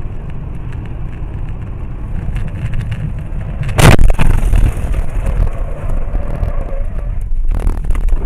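Car interior sound on a dashcam: a steady low rumble of road and engine noise, broken about four seconds in by one loud bang as the car is violently jolted in a crash. A second, shorter knock comes near the end, as the car ends up in snow.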